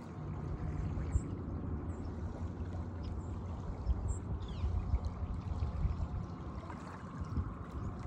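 Shallow water lapping and trickling among rocks and pebbles at the shoreline, a steady uneven wash with a low rumble underneath. A few faint, short high chirps of birds come through, one about four seconds in gliding downward.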